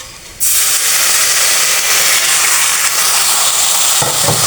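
Water poured into a hot pan of jaggery and spices, setting off a sudden loud sizzling hiss about half a second in that then keeps going steadily. The water is added so the jaggery does not scorch as it melts.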